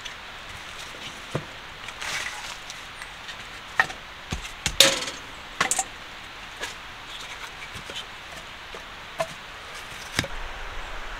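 Split firewood being handled and stacked upright against a small camp wood stove: irregular hollow wooden knocks and clunks as pieces are set down and tapped against each other, the loudest a little before halfway.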